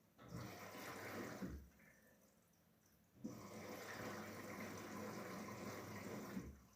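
Daewoo DWD-FT1013 washing machine taking in water at the start of a wash: two spells of rushing water, a short one of about a second and a half, then a longer one of about three seconds starting about three seconds in.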